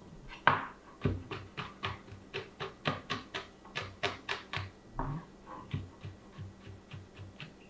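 Chef's knife chopping garlic and cayenne pepper on a cutting board: a quick, steady run of knife knocks on the board, about four or five a second.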